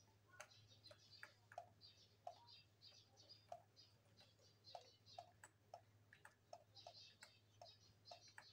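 Faint, irregular small clicks and ticks, a few a second, over a low steady hum.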